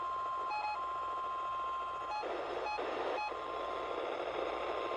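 Weather radio receivers going off for the NOAA weekly test: a steady, high alert tone holds for about two seconds, broken once briefly. Then come three short beeps about half a second apart, over a faint radio hiss.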